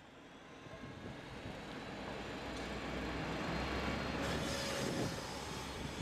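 A small city route bus driving past close by: its engine hum and tyre noise grow louder over the first few seconds and peak as it goes by.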